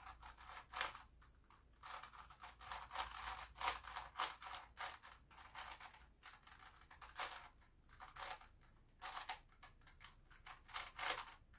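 Plastic Grilles II puzzle cube being turned face after face in quick succession: a run of faint, irregular plastic clicks and scrapes, several a second.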